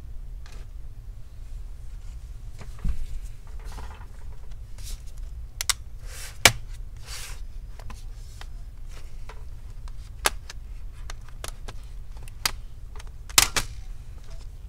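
Scattered sharp clicks and snaps of a laptop's bottom cover being pried loose from its clips, loudest about six and a half seconds in and again near the end, over a low steady hum.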